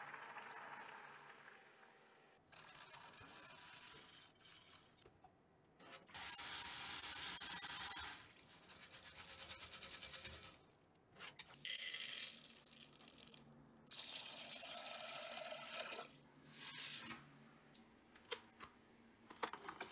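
Kitchen water sounds in several short takes: red beans bubbling in a boiling pot, then water poured off and running through a mesh strainer of beans, in bursts of a few seconds each with short pauses between.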